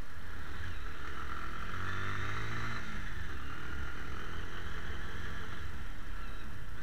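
Riding on a motorcycle, heard from a camera mounted on the bike: a steady low engine rumble under wind and road noise. About two to three seconds in, an engine note swells and then drops away.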